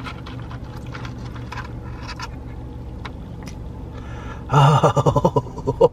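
Eating sounds: a plastic fork scraping through a paper boat of cheese fries, with small clicks of chewing, over a steady low hum from the car. About four and a half seconds in, a loud drawn-out hum from the man's voice with his mouth full.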